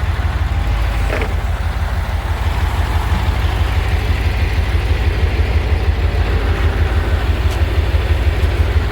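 Crane truck's diesel engine running at a steady speed with a low, fast-pulsing throb, powering the loader crane's hydraulics during a heavy lift.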